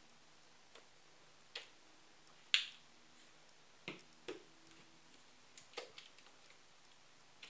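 Blobs of blue paint squirted from a paint bottle and dropped onto paper: a series of short sharp clicks and pops, about seven in all, the loudest about two and a half seconds in.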